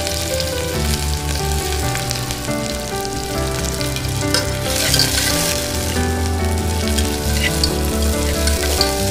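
Chopped onions sizzling and crackling in hot mustard oil with mustard seeds in an aluminium pressure cooker base, stirred with a metal spatula near the end.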